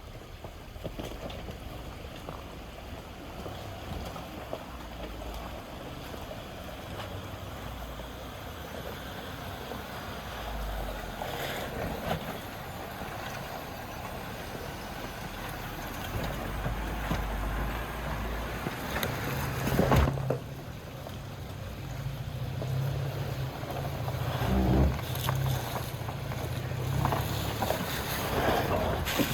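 An off-road 4x4's engine running at low speed, with wind rumbling on the microphone. A steadier engine hum comes up about two-thirds of the way through, with a couple of short knocks.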